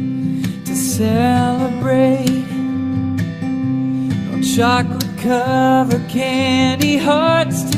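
Acoustic guitar music with a singing voice carrying a melody that comes in about a second in.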